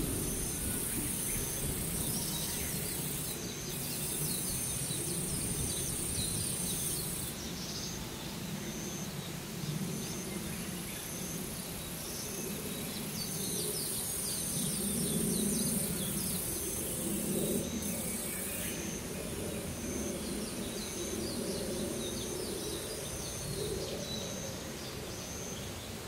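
Summer forest ambience by a pond. Insects buzz at a very high pitch in long stretches that start and stop several times, and a short high note repeats about once a second. Brief bird chirps are scattered over a low, steady background rumble.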